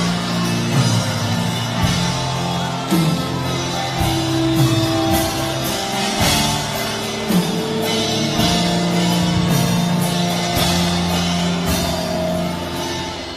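Instrumental church music: long held keyboard chords over a drum beat, with no voice, easing off slightly near the end.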